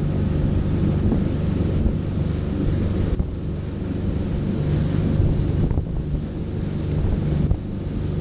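A motorboat's engine running at a steady pitch, with wind buffeting the microphone and water rushing past the hull.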